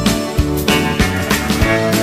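Country band music from a studio recording, with drums keeping a steady beat of about three hits a second under sustained guitar and bass lines.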